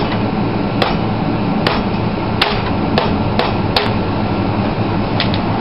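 A one-pound ball-peen hammer striking a forge-welded quarter-inch steel rod at an anvil, about nine sharp blows at uneven intervals, two of them in quick pairs. The rod is being bent to test the strength of the weld.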